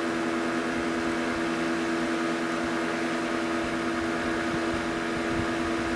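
Electric fan of a cylinder-cooling test jig running steadily: a constant hum with a fixed pitch over a rush of air.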